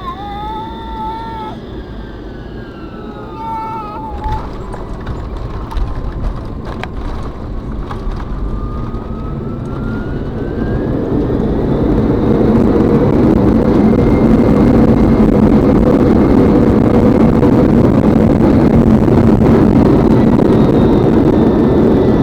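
Tu-154M's three Soloviev D-30KU-154 turbofans with a wavering whine, then about ten seconds in rising to a loud, steady roar as reverse thrust is applied on the landing rollout.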